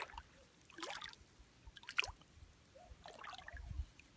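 Faint small splashes and drips of shallow water as a toddler steps barefoot through ankle-deep water and wet sand, a few separate splashes about a second apart.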